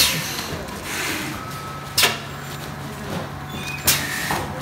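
Thermoforming vacuum packing machine running: three sharp clacks about two seconds apart, with a steady low hum setting in about a second and a half in.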